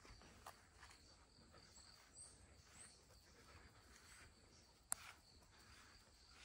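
Near silence: faint outdoor ambience with a few faint high chirps and one sharp click about five seconds in.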